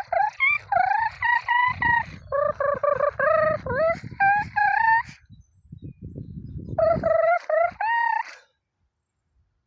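Loud, pitched bird calls in three long phrases, stepping up and down in pitch, over a low, rough throat-singing drone. Both stop about eight and a half seconds in.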